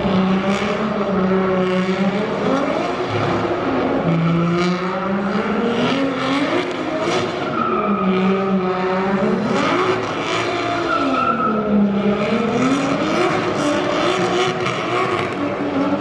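Drift car engine on track, revving up and falling back again and again, with tyre squeal from the slides.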